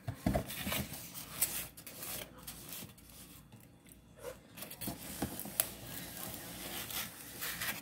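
Close-miked eating sounds: irregular chewing with small clicks and rustles, with a few sharper clicks as the plastic fork and paper plates are handled.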